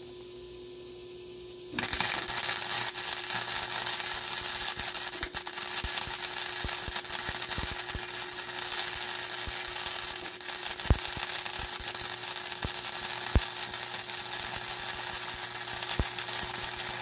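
Flux-core MIG welding arc striking about two seconds in and crackling steadily through one long bead, with scattered sharp pops of spatter, cutting off at the very end.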